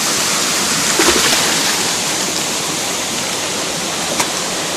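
Steady rush of flowing river water, with a brief voice sound about a second in and a short sharp click near the end.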